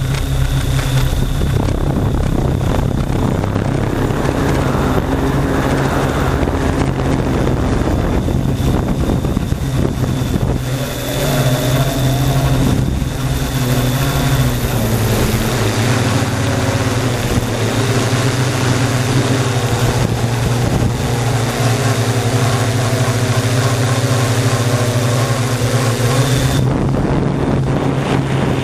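Multirotor drone's electric motors and propellers whirring steadily, heard from the camera riding on the drone; the hum shifts in pitch from about a third of the way in as the throttle changes, over a rushing noise.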